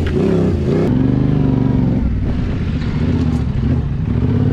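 Yamaha Ténéré adventure motorcycle's engine running as it is ridden slowly over a rocky trail. Its note shifts a little with the throttle and eases off briefly about halfway through.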